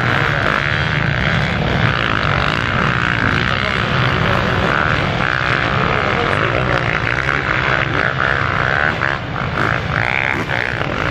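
Several motocross bikes' single-cylinder engines running and revving together, a loud overlapping racket whose pitches keep rising and falling as the riders accelerate and back off through the sand.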